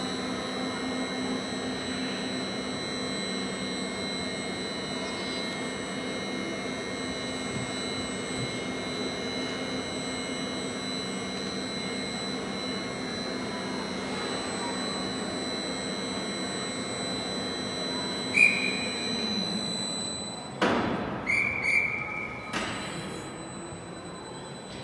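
Overhead gantry crane hoist running with a steady mechanical hum while it lowers a train car body, stopping about 20 seconds in. Near the end come short high-pitched signal tones and a couple of sharp clanks as the body sets down on its stands.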